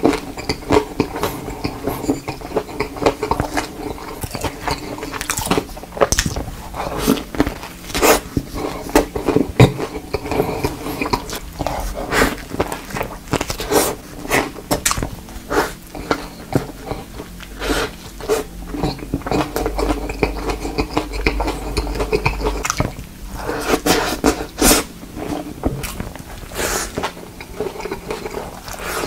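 Close-miked mukbang eating of hot dogs: bites into soft buns and sausages and fast chewing, with a dense run of sharp, irregular mouth clicks and crackles.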